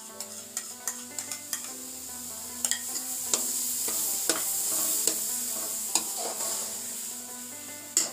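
Steel spoon stirring and scraping grated carrots for gajar ka halwa in a steel pan on the stove, with frequent clicks of the spoon on the pan over a sizzling hiss. The sizzle grows louder in the middle and eases off near the end, and one sharper knock of the spoon comes near the end.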